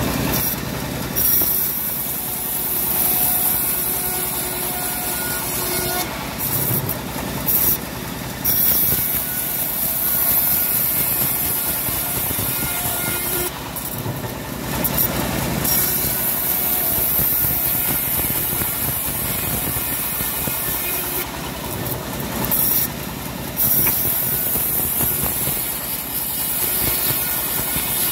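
Homemade bandsaw mill running steadily while its band blade rips a teak plank lengthwise. A constant machine drone is overlaid by a hissing cutting noise that swells several times, for a second or two each, as the plank is pushed through.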